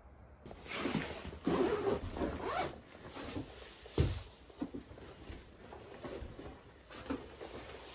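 A run of rasping, rustling strokes, like gear or clothing being handled, with one sharp thump about four seconds in.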